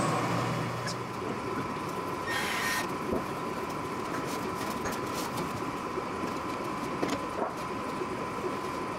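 Steady mechanical hum and hiss of workshop background noise with a faint steady whine, a brief rustle about two and a half seconds in, and a few light handling clicks.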